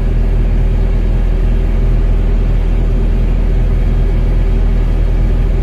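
Excavator's diesel engine running steadily, a deep even sound that holds level throughout.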